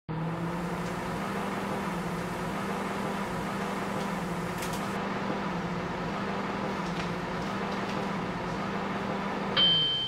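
Microwave oven running with a steady hum, then stopping near the end with a single loud beep that rings for about a second, signalling the end of its heating cycle.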